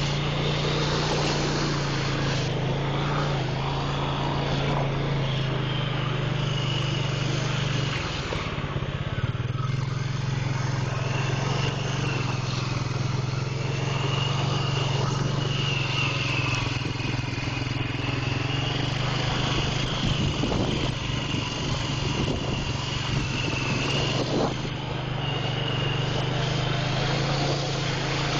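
Honda Rancher ATV's single-cylinder four-stroke engine running steadily, with a high whine wavering up and down above it.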